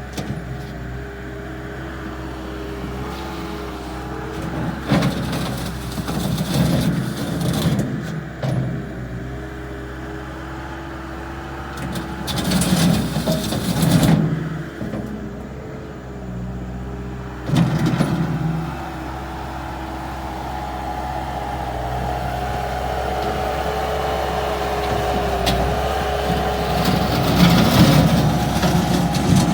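Bobcat 863G skid steer loader's diesel engine running under working load with a steady whine, surging louder in short spells as it grades, then building gradually over the last several seconds.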